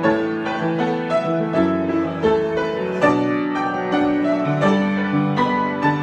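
Grand piano played solo in a freely improvised passage, with a melody over sustained chords and notes struck several times a second.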